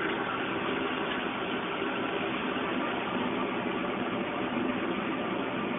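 Steady, even roar of a small silver-melting furnace running during a melt.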